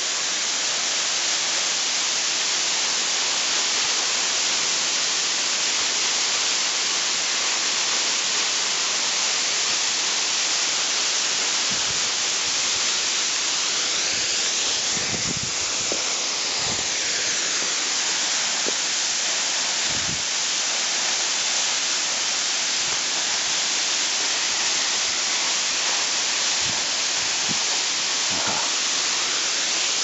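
Tall, narrow waterfall plunging down a rock face: a steady, even rush of falling water.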